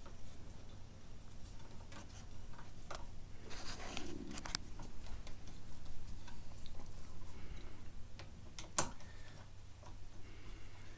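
Small irregular clicks and ticks of a hex tool and bike parts as a bolt on the handlebar brake-lever clamp is tightened, with a short rustle about four seconds in and one sharper click near the end.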